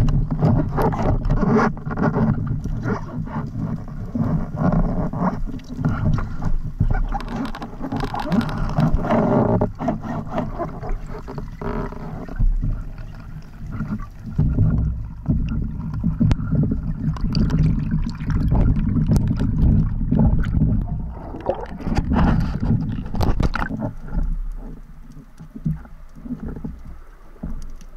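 Underwater noise close to the microphone: water rushing, with a dense run of knocks and rattles as the speargun and a speared grouper are handled. It starts abruptly and eases off near the end.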